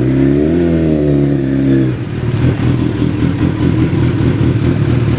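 Suzuki B-King's 1340 cc inline-four engine given a blip of the throttle, its pitch rising and falling back over the first two seconds, then settling to an uneven idle.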